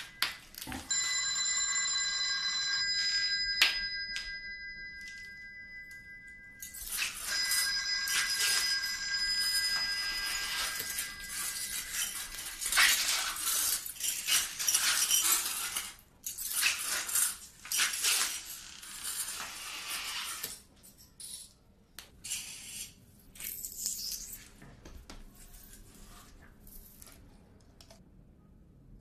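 A ringing electronic tone of several steady pitches sounds twice, each time for a few seconds, followed by a long hiss-like noise that starts and stops.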